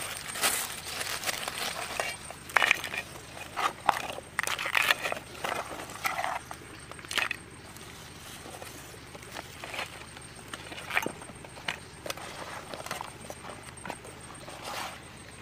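Hands handling vegetables, leaves and crabs: irregular rustles, clicks and light knocks, busier in the first half and sparser later.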